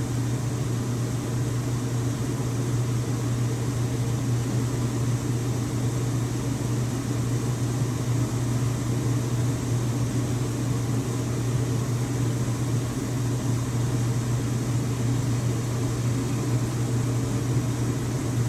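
Steady low hum with an even hiss behind it, unchanging throughout: background room noise.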